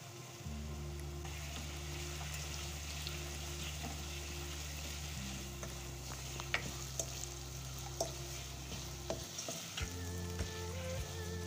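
Sliced potatoes sizzling in hot oil in a non-stick pot. From about halfway, a plastic spatula stirs them, with sharp clicks and knocks against the pan. Soft background music plays underneath, and a melody comes in near the end.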